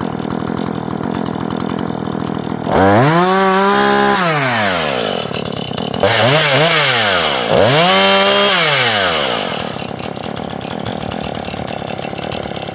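Two-stroke chainsaw idling, then throttled up three times in a row, its pitch rising and falling with each surge, before dropping back to idle near the end.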